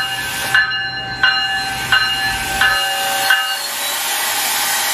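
A GO Transit commuter train's warning bell ringing at a steady pace, about one and a half strokes a second, five strokes that stop a little past three seconds in, the bell rung as the train moves off. A steady hiss follows.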